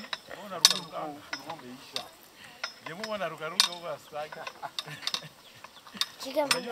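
Sharp metallic clanks and clinks from a hand-operated lever brick press being worked, the loudest about half a second in and again about three and a half seconds in, with people's voices underneath.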